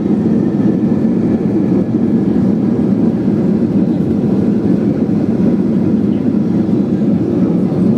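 Steady, loud rumble inside an airliner's cabin during the landing roll: the engines and the wheels running on the runway, with no distinct knocks or changes.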